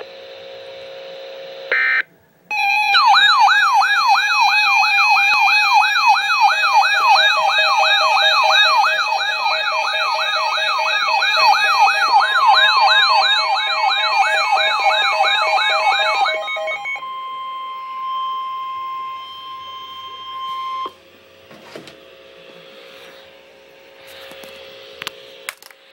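Electronic wailing siren whose pitch sweeps rapidly up and down about three times a second, layered over steady alert tones. It starts after a short steady tone and a brief gap, and gives way at about sixteen seconds to steady beeping tones that cut off at about twenty-one seconds.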